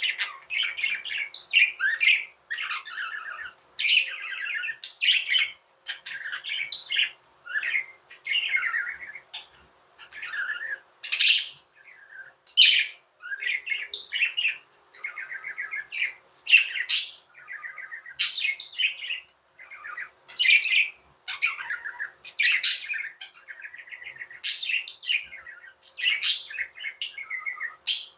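Pet budgerigars warbling and chirping in a continuous chatter of short, rapid notes with occasional sharper high chirps.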